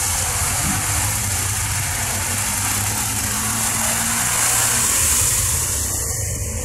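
ATV engine running steadily, under a broad hiss that swells a little about five seconds in.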